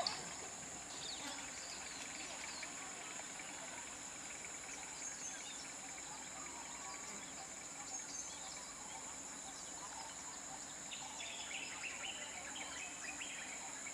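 Steady high-pitched drone of insects, with a few short chirps near the end.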